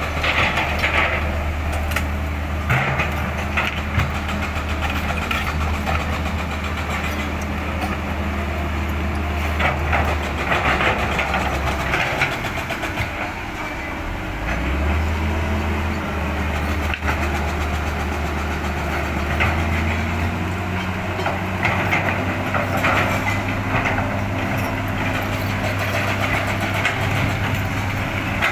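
Tracked hydraulic excavator's diesel engine running under load while the bucket digs into dirt and broken rock, with scraping and knocking from the bucket. The engine note drops about twelve seconds in and comes back up a few seconds later, then rises again near the twenty-second mark.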